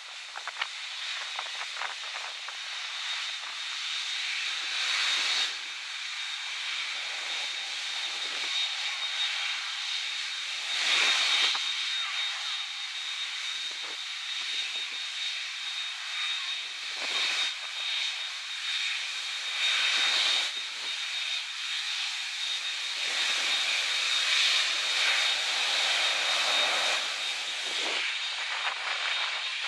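Jet airliner engines running: a steady high whine over a rushing noise that swells and fades several times.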